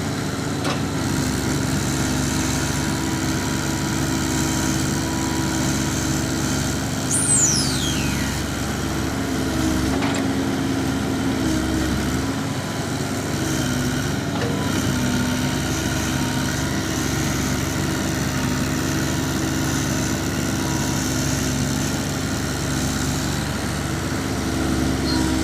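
Hino dump truck's diesel engine running steadily, with a brief high whistle falling in pitch about seven seconds in.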